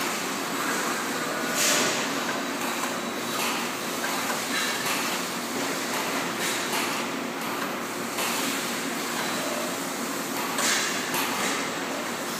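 Robotic spot-welding line running: a steady machinery din with a low hum. A few short, sharper hissing bursts stand out, the loudest about two seconds in and again near the end.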